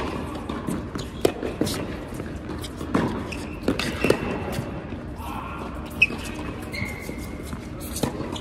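Tennis ball struck by racquets and bouncing on a hard court during a rally: a string of sharp pops spaced a second or so apart in a large indoor hall.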